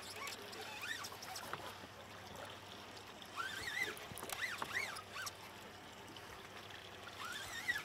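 Faint water sloshing at the side of a boat, with a few short, faint squeaks that rise and fall in pitch about a second in, several more in the middle, and one near the end.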